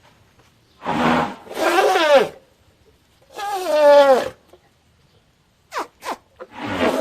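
Baby elephant calling: three pitched calls, each under about a second and falling in pitch, then a fourth call starting near the end, with two short clicks just before it.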